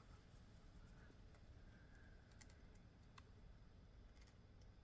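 Faint, scattered small clicks of jewellery pliers and metal jump rings being handled, a few over several seconds against near silence.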